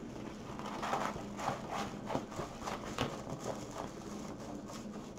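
A rolled diamond-painting canvas and its paper cover being handled and unrolled on a wooden table: an uneven string of paper-and-plastic rustles and short soft knocks.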